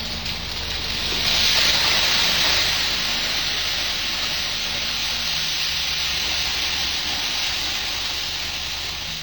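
Steady hissing noise, loudest a second or two in, over the low, even hum of a running engine.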